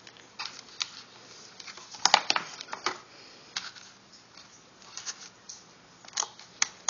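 Scattered clicks, taps and scrapes of a screwdriver and fingers working at a small metal-cased LED driver as it is screwed into a plastic light hood, with a cluster of louder knocks about two seconds in.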